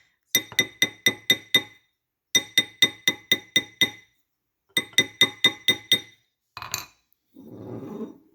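A steel chasing hammer striking a wire ring on a metal ring mandrel, in three quick runs of blows (about four or five a second), each blow ringing. The hammering textures the ring and stretches it larger. Softer rustling handling noise follows near the end.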